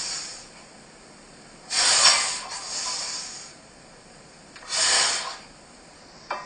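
A weightlifter breathing forcefully through the mouth during barbell box squat reps: three loud, noisy breaths about three seconds apart, one of them as he drives up from the box. A light click near the end.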